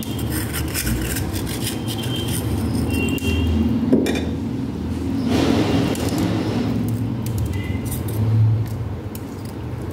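Small stones clinking and scraping against a clay pot as a clump of guppy grass is handled and pressed into it, over a steady low hum.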